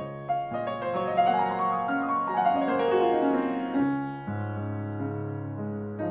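Grand piano played solo: a quick run of notes falls in pitch from about one second in until about four seconds in, then low bass notes ring on under it.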